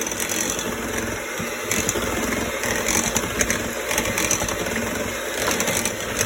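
Electric hand mixer running steadily, beating cake batter in a bowl.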